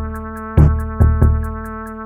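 Electronic background music: steady synth chords over a drum-machine beat, with a kick about twice a second, a snare hit and even hi-hat ticks.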